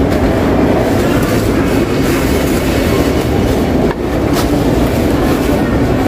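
Supermarket checkout-area ambience: a loud, steady, low rumbling din of the hall, with a couple of short clicks about four seconds in.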